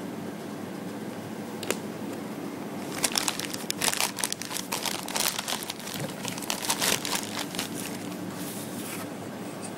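Thin plastic parts bag crinkling as it is handled and opened, from about three seconds in until shortly before the end, over a steady low hum. A single sharp click comes before the crinkling starts.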